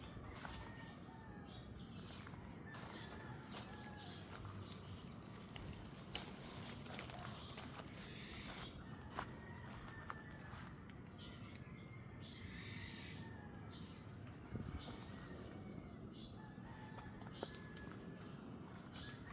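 Farmyard ambience: a steady high insect buzz throughout, with chickens clucking faintly now and then and a few light clicks.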